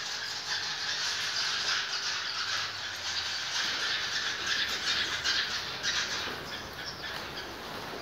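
A flock of swiftlets twittering: a dense, unbroken chatter of short, high chirps, a little louder in the middle.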